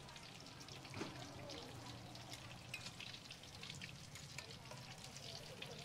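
Battered balut eggs deep-frying in woks of hot oil: a steady, faint crackle of many small pops over a sizzle.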